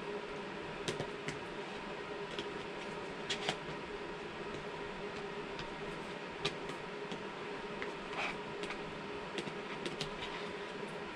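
Scattered clicks and short scrapes of a metal fork against a plastic food tray, a dozen or so at irregular intervals, over a steady background hum.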